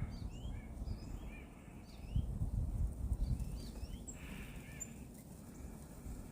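Scattered faint bird chirps, short high notes coming every second or so, over a low outdoor rumble.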